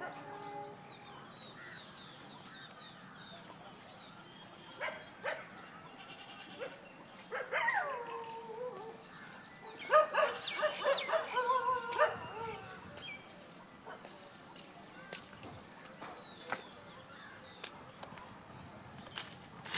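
Steady, fast-pulsing high chirr of insects, broken by a falling animal call about seven and a half seconds in and a run of short pitched animal calls at about ten to twelve seconds, the loudest sounds here.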